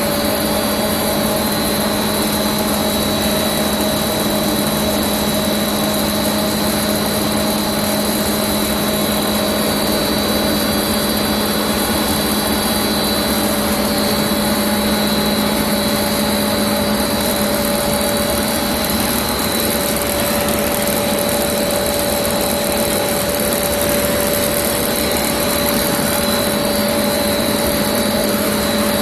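Dry pet food extrusion line running: a steady machine drone from the extruder and its drive motors, a constant low hum with a thin high whine over it.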